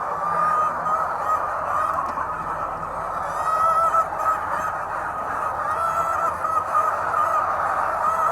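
A large flock of hens in a poultry house calling and clucking together without a break, many voices overlapping.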